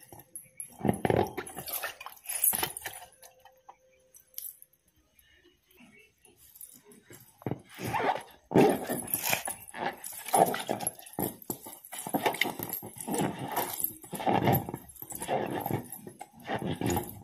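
Red latex balloon squeaking and rubbing as bare feet press and roll it against a wet concrete floor. The squeaks come in irregular bursts, with a lull a few seconds in, then come thick and fast again.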